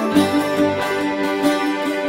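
Instrumental background music: a gentle melody of short notes over held lower notes.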